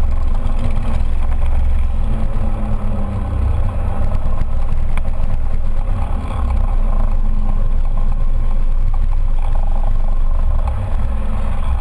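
Scooter engine running at low speed among other motorcycles and scooters, heard from a camera mounted on the scooter's front, under a steady heavy low rumble.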